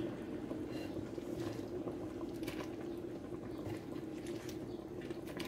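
A spoon stirring macaroni through a thick, creamy cheese sauce in a metal pot: wet squelching and sloshing with a few light clicks of the spoon against the pot, over a steady low hum.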